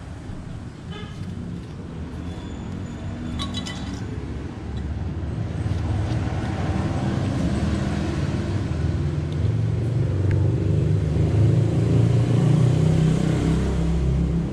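Motor vehicle engine rumble that grows steadily louder over several seconds, with a few brief metallic clinks a few seconds in.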